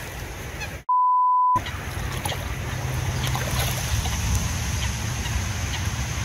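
A pure 1 kHz censor bleep about a second in, lasting about two-thirds of a second and blanking out all other sound while it plays. Around it, steady outdoor water and wind noise.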